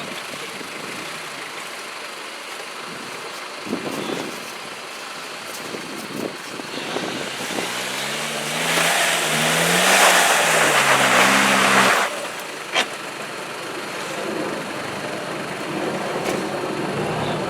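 Off-road 4x4's engine revving up and down under load, with a loud rushing noise for several seconds at its peak that cuts off suddenly.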